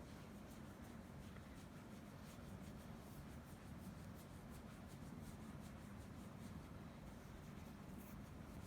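Near silence: room tone with a steady low hum and faint scattered soft ticks.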